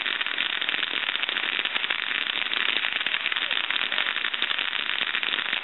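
Ground fountain firework spraying sparks, with a dense, continuous crackle of many rapid small pops.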